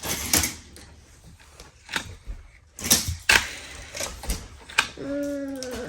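Plastic toy cars and playset pieces clacking and knocking together in hand play: a run of sharp, irregular clicks and taps, the loudest pair about three seconds in.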